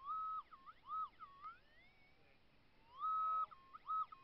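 Minelab SDC 2300 metal detector's target signal as its round coil sweeps over a dug hole: a high, clean tone that swells up in pitch, holds, drops and rises again. It sounds in two bursts, near the start and about three seconds in, marking a gold nugget still in the ground.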